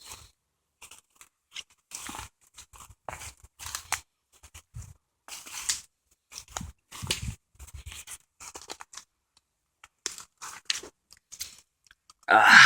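Irregular scraping, rustling and crunching as someone clambers onto a fallen tree trunk, with a louder scrape near the end.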